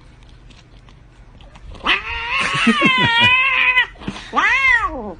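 A cat yowling: a long, wavering call about two seconds in, then a shorter call that rises and falls near the end.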